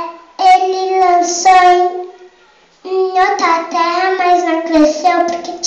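A young girl singing into a microphone: long held notes in two phrases, with a short pause about halfway through.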